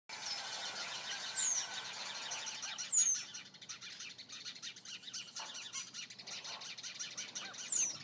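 Small birds chirping in a dense, continuous chatter, with three loud, high calls that slide quickly downward in pitch: about a second in, about three seconds in, and near the end.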